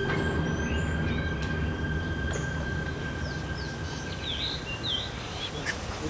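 Birds calling with short, quick chirps over a low steady drone and a thin high steady tone that stops about five seconds in.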